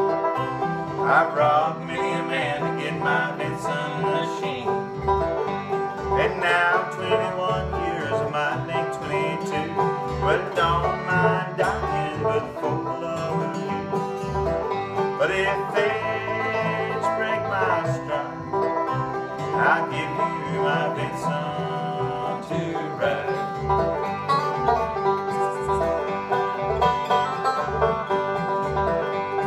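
Bluegrass instrumental break on five-string banjo, acoustic guitar and upright bass with no singing: the banjo is picked over strummed guitar, and the bass plucks a steady low beat.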